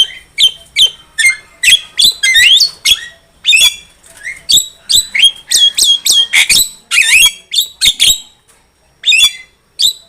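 Javan myna (jalak kebo) singing a fast, continuous string of sharp squawks and whistled notes, some gliding up or down in pitch, with a short break about eight and a half seconds in.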